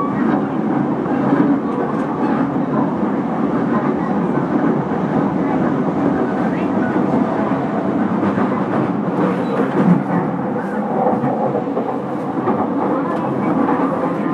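E231-series commuter electric train running on the Yamanote Line: a steady rumble of wheels on rail with faint rail-joint clicks.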